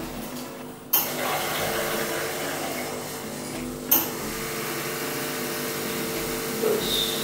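Espresso machine pump running steadily as a shot is pulled through a bottomless portafilter, with two sharp clicks about a second in and about four seconds in. The shot builds under 4 bar of pressure, which is put down to a grind not fine enough or to clumping.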